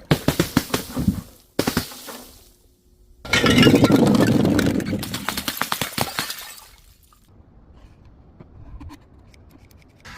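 Glass breaking under crushing: a quick run of sharp cracks, a short crunch, then a loud crunching shatter lasting about three seconds that trails off into scattered small clinks of broken glass.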